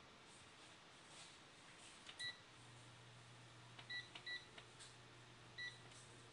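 Faint beeps from the control panel of a 3000 W induction hob as its buttons are pressed: one beep about two seconds in, a quick double beep near the middle, and one more near the end. Just after the first beep a low steady hum starts as the hob switches on and begins heating the pot.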